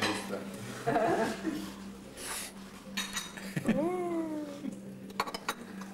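A single meow-like cry lasting about a second, rising sharply and then sliding down in pitch. A few dishes clink just after it, over a steady low hum.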